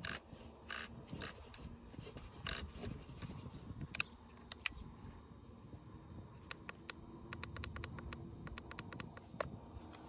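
Plastic clicks and scrapes from handling a pistol-grip RC transmitter and turning its steering wheel, with a quick run of small clicks in the second half.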